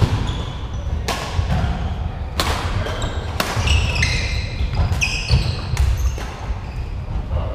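Badminton rally: rackets strike the shuttlecock with sharp cracks about once a second, ringing briefly in a large hall. Shoes squeak on the wooden court in the middle of the rally, over a steady thudding of feet.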